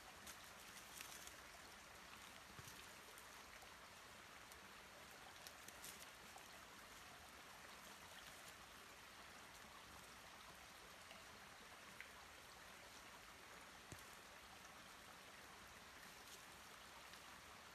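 Near silence: a faint steady hiss, with a few soft ticks and rustles from hands picking among dry leaf litter.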